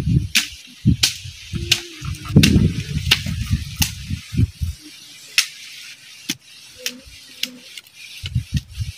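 Gusty low rumble of wind on the microphone, with a string of sharp high clicks, roughly one every second.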